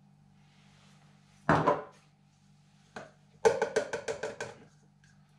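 A small plastic cup knocked quickly and repeatedly against the rim of a plastic tub, about seven hollow taps in a second, tapping out ground black pepper. There is a sharper clatter and a single click a little before.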